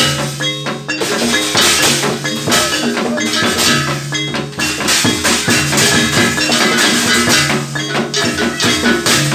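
Gamelan ensemble playing jaranan accompaniment: busy hand-drum strokes over ringing metallic gong-chime tones, with a low held tone recurring every second or two.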